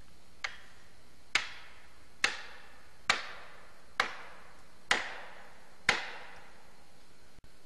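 Seven heavy blows struck at a steady pace, about one a second, the first one lighter, each followed by a short echo.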